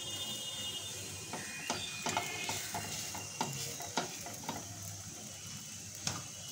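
A silicone spatula presses and taps a paneer paratha in a non-stick frying pan. It makes light, irregular clicks for about three seconds, starting just over a second in. A steady frying sizzle runs underneath.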